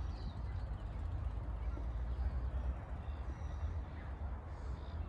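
Outdoor ambience: a steady low rumble with a few faint, brief bird calls.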